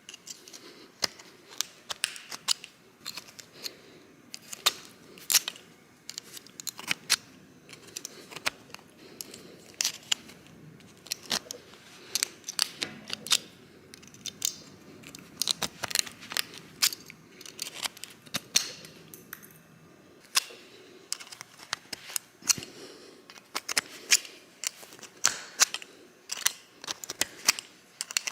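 Hand tools and plastic parts of a car power-antenna unit being worked apart: irregular sharp clicks and small knocks, sometimes several a second, with quiet handling noise between them.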